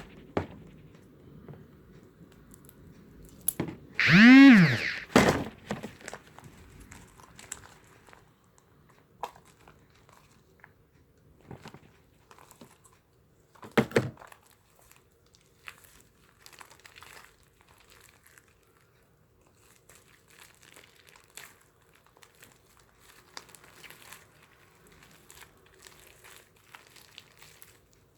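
Slime being squished and kneaded by hand in a bowl, giving faint crinkly, sticky handling noises. About four seconds in comes one loud cry that rises and falls in pitch, and a single sharp knock follows at around fourteen seconds.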